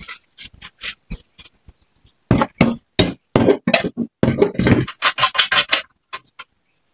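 A series of irregular metal clunks, knocks and scrapes as a small petrol engine's cast base is set down and shifted on a welded steel frame, busiest in the middle. The engine is not running.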